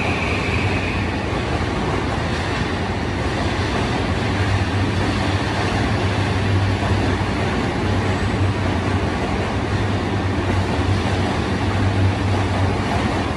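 E235-1000 series electric train running along an underground station platform: a steady, loud running noise of the train with a low hum underneath.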